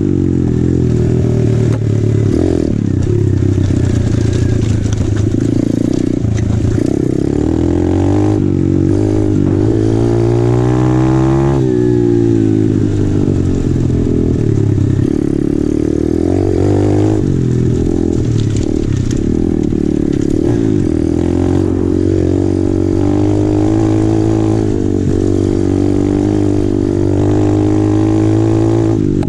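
Apollo RFZ 125cc pit bike's air-cooled four-stroke single-cylinder engine running under load while riding. The revs climb steadily from about nine seconds in, then drop sharply at about twelve seconds before settling back to a steady pull.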